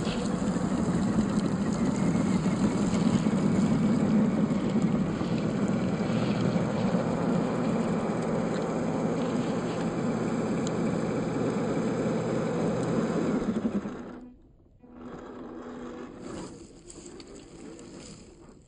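Electric motor and gearbox of a 1/12-scale MN86K G500 RC car running steadily with a whine while it drives off-road. The sound drops off sharply about 14 seconds in, then returns quieter and fades near the end.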